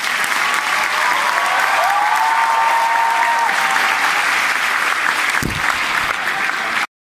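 A large audience applauding steadily in a hall, with a few cheers rising over the clapping. The applause cuts off abruptly near the end.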